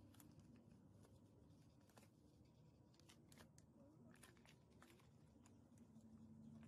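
Near silence, broken by faint scattered ticks and rustles of hands handling a plastic packet of soft clay.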